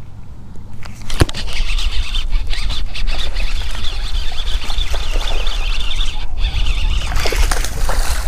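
A bass being hooked and reeled in on a baitcasting rod and reel: a sharp snap of the hook set about a second in, then steady reel whirring over rumbling handling noise, with the largemouth bass splashing at the surface beside the boat near the end.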